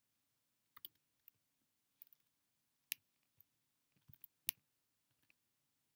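Faint computer mouse and keyboard clicks, about ten spaced irregularly, with a quick cluster a little past the middle.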